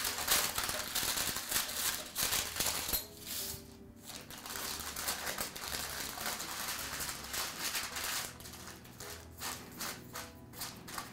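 Baking parchment crinkling and rustling as it is rolled tightly around a log of soft cookie dough, busiest in the first few seconds and coming back in patches later, over soft background music.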